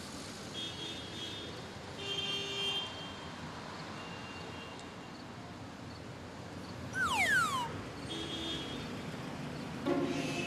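Night street traffic ambience: a steady hum of passing cars, with brief high-pitched tones from the traffic several times and a quick downward-sliding tone about seven seconds in.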